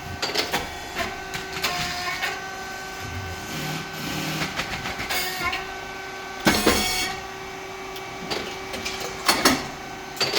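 Rice cake popping machine running, with a steady hum from its motor, hydraulic pump and fan and repeated mechanical clicks and clanks. A louder burst of noise comes about six and a half seconds in.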